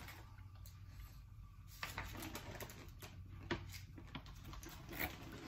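Faint rustling and a few light taps of paper and plastic snack packaging being handled, over a low room hum.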